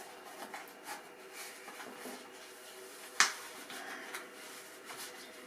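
Soft handling noise of a sewn vinyl cover being folded and tucked over a plastic console lid, with small scattered ticks and one sharp click about three seconds in.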